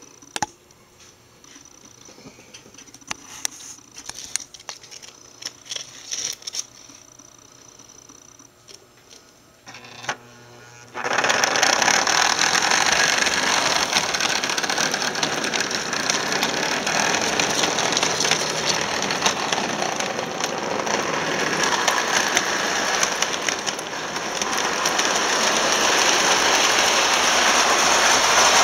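Vintage Marx tin-plate toy electric train running on its track: a few faint clicks at first, then, about eleven seconds in, a sudden loud, steady clatter and whir of wheels and motor as the train runs close by.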